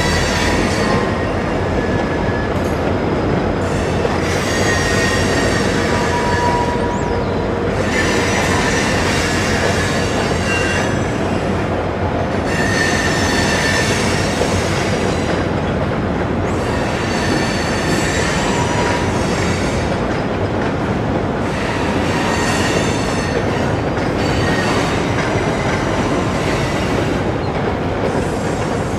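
Freight train rolling across a steel bridge: a steady rumble of the cars, with stretches of high-pitched wheel squeal that come and go every few seconds.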